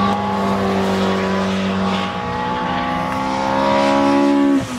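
Rally car engine revving hard as it accelerates away up the stage, rising in pitch through the gears. There is a gear change about two seconds in and another just before the end.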